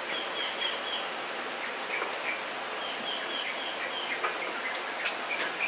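Birds chirping in a few runs of quick, high chirps over a steady background hiss, with a few faint clicks.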